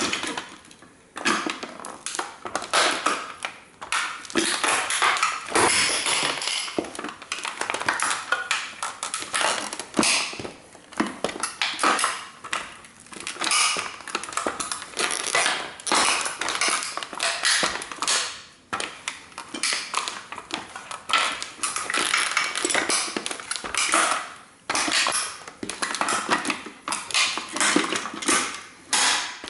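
A 1:18 scale model car being trampled and crushed under sneakers: a dense, irregular run of cracking, crunching and clinking as its parts break and rattle, with brief pauses.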